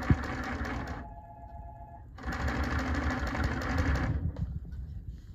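Consew 255RBL-25 triple-feed walking-foot industrial sewing machine stitching through a thick stack of webbing, denim and fleece: a fast, even stitching rhythm for about a second, a short pause with only a faint steady hum, then another run of about two seconds before it stops.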